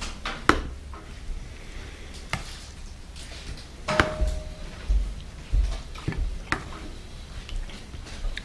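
A metal fork clinking and scraping against a dinner plate while someone eats: a few sharp clinks spread out, one about four seconds in ringing briefly, with dull low knocks on the table.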